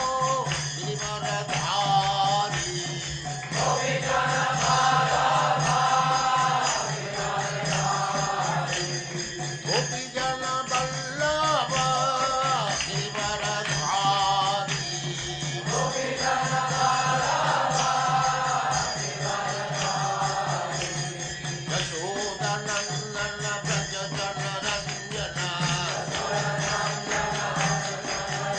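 Devotional chanting sung to music, a voice's melodic phrases over a steady low drone, with light percussion keeping time.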